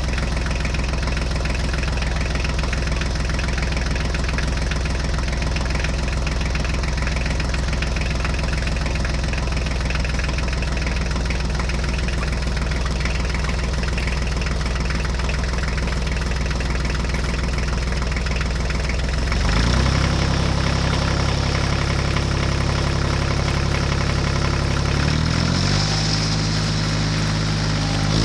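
Tractor engine running steadily. About two-thirds of the way through it rises in pitch and gets a little louder, and it steps up again near the end.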